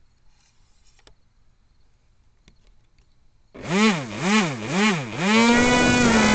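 Yellow Bee RC plane's motor and propeller, heard from the onboard camera. After a few faint clicks, the motor starts about three and a half seconds in and its pitch swells and falls three times as the throttle is blipped. It then holds a steady high whine under a broad hiss of air.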